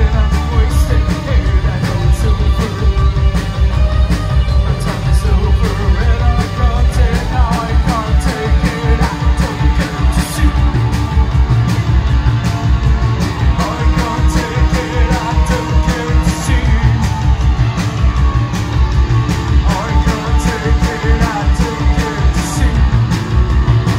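Live post-punk band playing loud: a steady driving drum beat with heavy bass and guitar, and a singer's voice over it.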